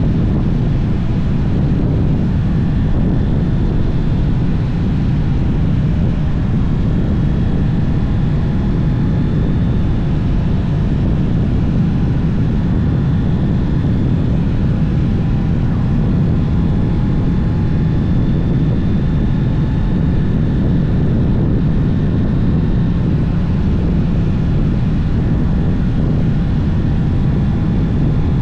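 Heavy wind noise on the microphone of a moving Honda CB650R, with the bike's inline-four engine on its stock exhaust running steadily beneath it as faint tones that drift slowly in pitch.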